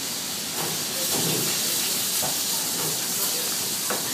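Steaks sizzling in hot frying pans on a gas range: a steady hiss, with a couple of short knocks partway through.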